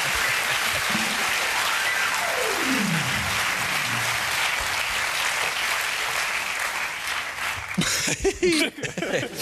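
Studio audience applauding, thinning out about seven to eight seconds in. About two seconds in, a single tone slides steadily down in pitch over roughly a second and a half.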